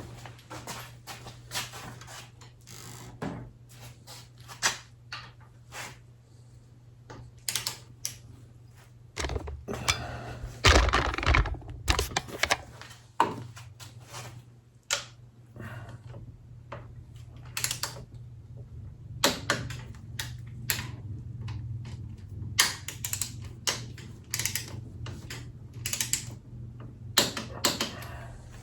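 Irregular sharp clicks and clinks of hand tools on the motorcycle's front fork bolts, a ratchet and torque wrench being worked as the fork bolts are tightened. There is a louder, denser clatter about ten seconds in.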